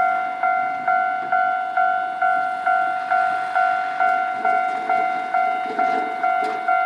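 Japanese railway level crossing warning bell ringing, an even, repeating clang at just over two strikes a second.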